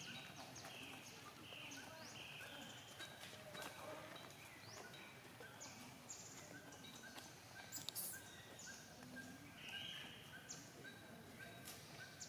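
Faint animal calls: many short, high chirps and squeaks falling in pitch, over a regular run of short notes repeating about two to three times a second.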